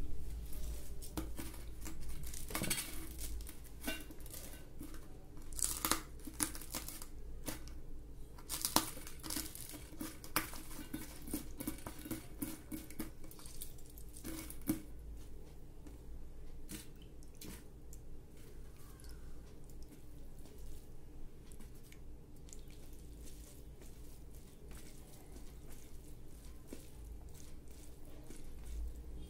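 Hands squeezing a lime and breaking green chillies over a stainless steel bowl, with sharp clicks and taps on the steel, most of them in the first half. Later, softer wet sounds as rice and dal are mixed by hand.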